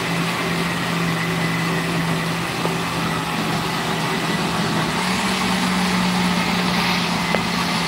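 Electric countertop blender running steadily with a motor hum, its pitch stepping slightly higher about five seconds in.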